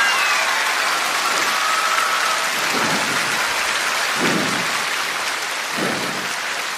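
Large concert audience applauding and cheering as a song ends, with high-pitched fan screams that die away over the first couple of seconds. A few short low sounds stand out about three, four and six seconds in.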